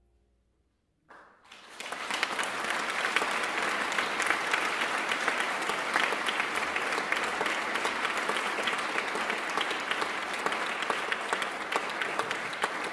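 Audience applause that breaks out suddenly about a second in, after a moment of quiet, and carries on steadily.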